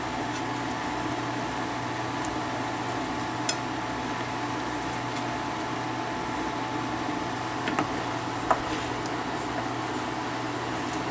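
A wooden spoon stirring a thick butter-and-flour pan sauce as it simmers in a frying pan, with a few light clicks of the spoon against the pan, one about a third of the way in and a couple more past two-thirds, over a steady hum.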